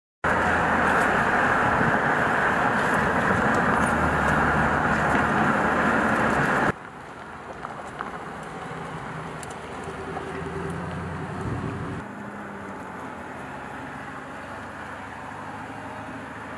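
Dodge Charger SRT Hellcat Redeye's supercharged 6.2-litre V8 running loud and steady for about six seconds. After an abrupt cut it is heard much quieter as the car drives along a street.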